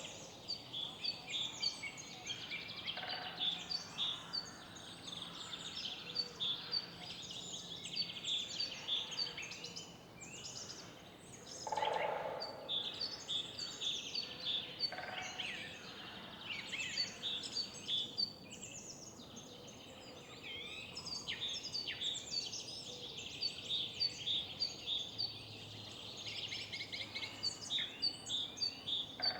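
Many small songbirds singing and chirping at once in a spring morning chorus, with steady background noise underneath. About twelve seconds in, one louder, lower call stands out.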